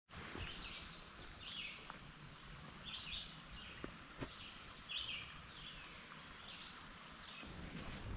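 Songbirds singing in the woods: a run of short, rapid chirping phrases repeating every second or so over a faint steady background hiss, with a few soft clicks around the middle.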